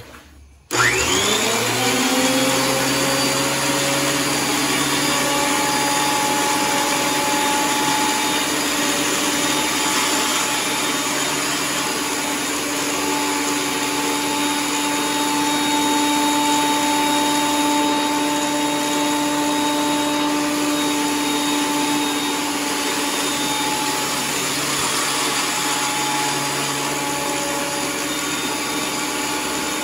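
WEN electric thickness planer starting up: its motor spins up with a rising whine about a second in, then runs loud and steady.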